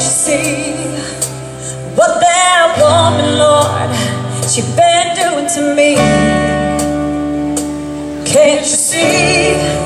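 A woman singing into a handheld microphone over a strummed acoustic guitar, in several phrases with held notes that waver.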